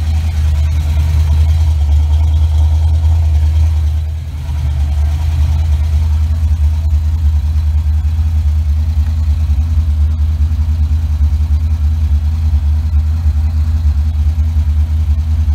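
1988 Mustang GT's 5.0 L (302) small-block Ford V8 with a Trick Flow cam, idling steadily at about 1,200 rpm on its newly fitted Holley Terminator X EFI. The idle is set high for tuning, and the engine is not yet fully warmed up.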